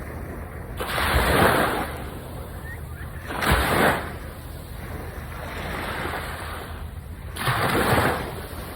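Sea waves breaking and washing up a beach, with three louder swells of surf, about a second in, near the middle and near the end, over a steady wash.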